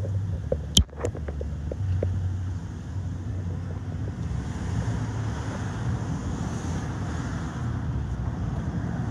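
Wind rumbling on a phone microphone, with a sharp click a little under a second in. From about four seconds a steady hiss joins the rumble.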